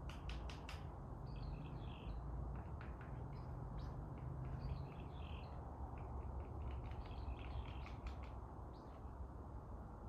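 Several songbirds chirping and singing: a quick run of sharp notes at the start, then warbled phrases every few seconds, over a steady rush of wind through the leaves with a low wind rumble.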